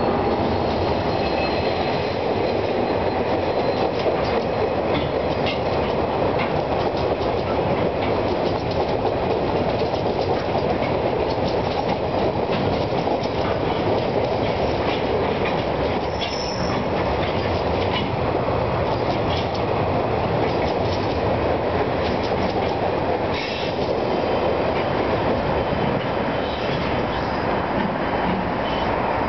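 Freight train of loaded log wagons rolling past close below, a steady heavy rumble with the wheels clicking over the rail joints. A brief high wheel squeal comes about halfway through.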